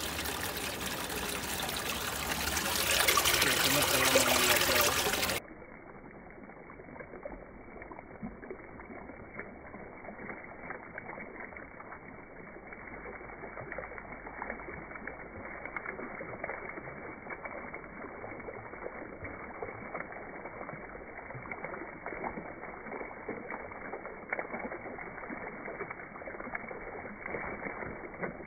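Running water: a stream flowing in a stone channel, swelling louder for a couple of seconds. After an abrupt cut about five seconds in it becomes the dull, steady splashing of a small fountain jet, with no high end.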